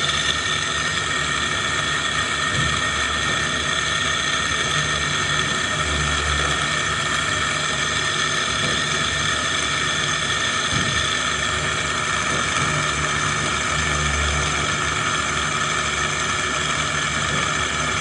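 Small electric motor spinning a spindle to wind fine heater wire onto a spool: a steady whine made of several high tones over an uneven low hum.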